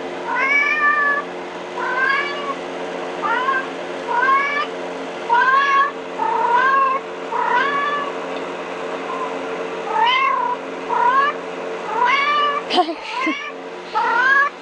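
Recorded kitten meows played through a phone speaker: high-pitched calls, each rising and then levelling off, repeating about once a second over a steady low hum. A brief knock near the end.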